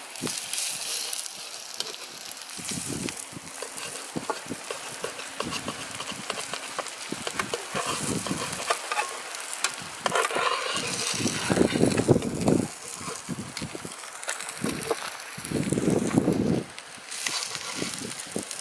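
Fish fillets sizzling as they fry in a steel pan, with a knife and a metal spatula clicking and scraping against the pan as the fish is turned. Louder rushes of noise come about ten seconds in and again around sixteen seconds in.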